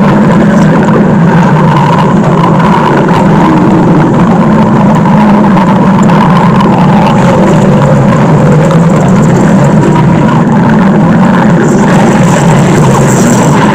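Stomach-growl sound effect: a loud, steady rumbling growl that runs on without a break.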